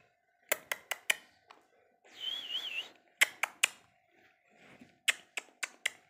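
Green Indian ringneck parakeet giving a short, wavering whistle over a hiss about two seconds in, among sharp clicks that come in quick groups of three or four.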